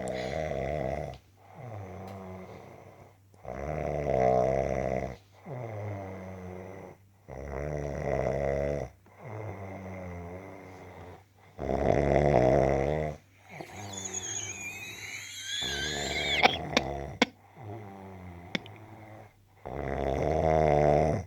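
A person snoring in deep sleep: a rattling snore about every two seconds, loud ones alternating with softer ones.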